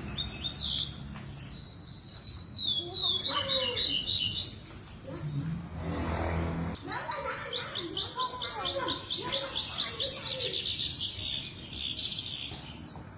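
Javan bush lark (branjangan) singing: whistled, gliding phrases at first, then from about seven seconds in a fast run of repeated down-slurred notes, about six a second. A brief rush of low noise breaks the song just before the fast run.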